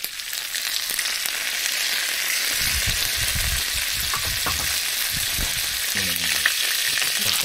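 Food frying in hot fat, a steady sizzle that swells over the first second or so and then holds, with a few low thumps about three seconds in.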